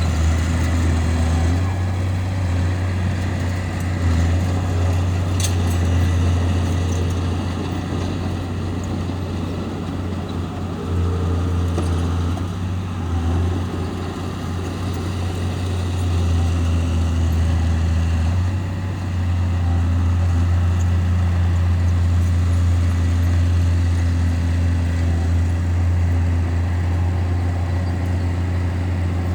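Heavy diesel engine of a bulldozer running with a deep, steady drone whose loudness shifts a few times as the load changes, with a single sharp click about five seconds in.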